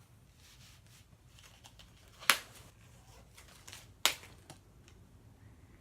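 Two sharp clicks about two seconds apart, with a few fainter ticks and light rustling from things being handled.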